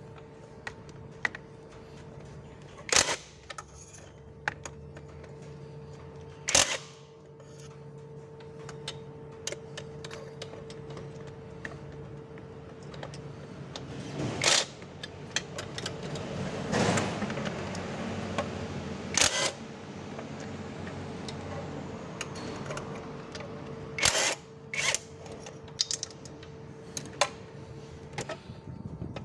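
Handling noise: scattered sharp clicks and knocks as parts and a clear plastic box are handled close to the microphone, over a steady hum that stops near the end.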